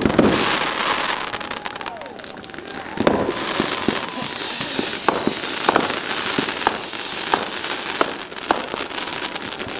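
Aerial fireworks going off: a loud crackling burst at the start, another about three seconds in, then a string of sharp bangs every half second to second. Thin high whistles slide slightly downward through the middle.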